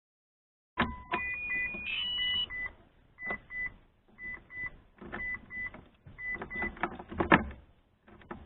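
Mitsubishi Lancer Evolution IX's electronic warning chime beeping in short pairs about once a second, with sharp clicks and rattles of the key and the ignition switch being worked.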